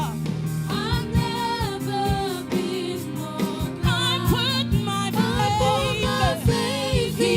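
Gospel choir singing a worship song over a live band, with drums keeping a steady beat under the wavering sung lines.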